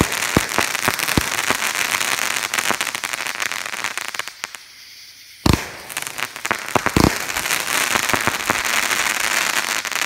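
A 200-gram crossette fireworks cake firing. Its crackling crossette comets give a dense crackle, which thins to a short lull a little before halfway. Then come two sharp bangs about a second and a half apart, and the crackling builds again.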